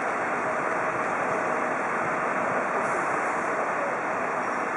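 Steady engine rumble and hiss from heavy vehicles idling, unbroken throughout.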